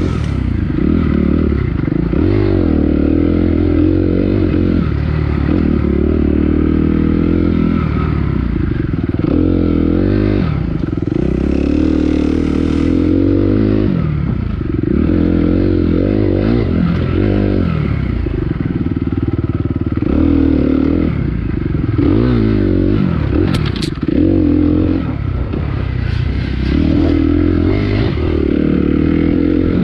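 Dirt bike engine being ridden hard, the revs climbing and dropping again and again through throttle changes and shifts, with some clattering. A single sharp click about two-thirds of the way in.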